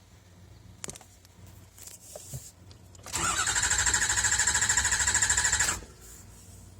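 Ford 6.0L Power Stroke V8 diesel cranking on its starter for about three seconds without firing, then stopping abruptly. There is no injector clatter, a no-start condition.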